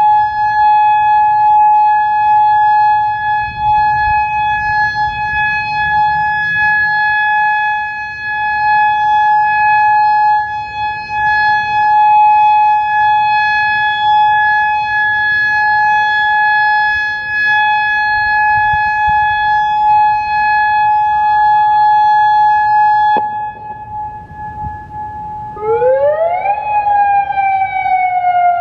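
Federal Signal Modulator 6048 electronic outdoor warning siren sounding a steady tone, which cuts off suddenly about 23 seconds in. After a short lull it starts a wail, rising quickly in pitch and then slowly falling.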